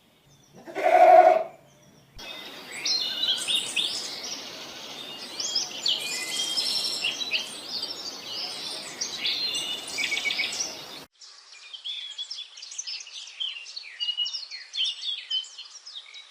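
A single bleat about a second in, then many small birds chirping and twittering over a noisy background. Near eleven seconds it cuts abruptly to another recording of fewer birds chirping.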